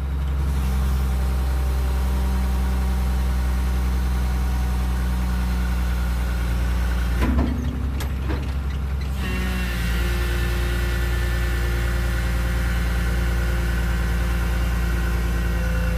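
Diesel engine of a Komatsu PC220LC excavator running steadily while the boom and stick are worked, keeping its note rather than dropping power: the test for air getting into the fuel system. About seven seconds in there is a short burst of noise, after which the engine note shifts slightly and a higher steady whine joins it.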